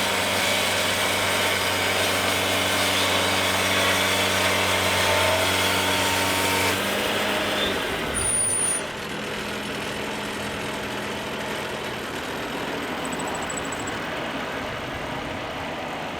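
Wood-Mizer portable sawmill running steadily under load. About seven seconds in its engine note falls in pitch, and just before nine seconds in it drops abruptly to a quieter steady idle.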